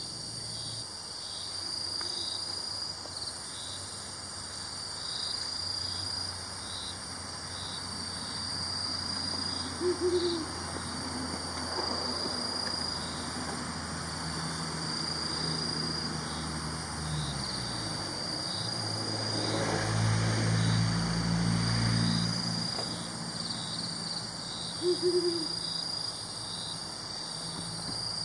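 Brown wood owl giving two single deep hoots, about ten seconds apart and fifteen seconds apart, over a steady, pulsing chorus of crickets and other insects. A low hum swells in the middle and fades before the second hoot.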